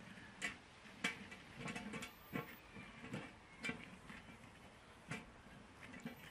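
A wooden stick scraping and knocking against a small cast iron skillet as eggs are stirred and scrambled, in irregular clicks and scrapes.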